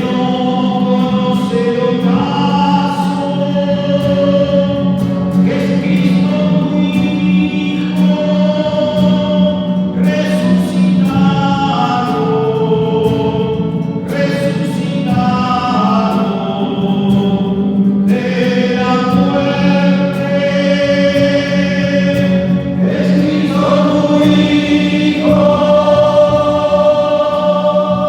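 A choir singing a slow liturgical chant in long held notes, with a steady low note sounding beneath the voices.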